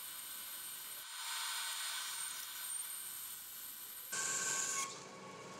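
Band saw blade cutting through a block of Verawood, a dense tropical hardwood, as the forward ramp of a plane body is cut with a slight curve. The cutting noise gets louder about a second in, and louder again for a moment about four seconds in.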